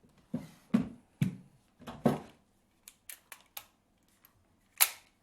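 About five irregular dull thumps or knocks in the first two seconds, then a few faint sharp clicks, and a short hiss near the end.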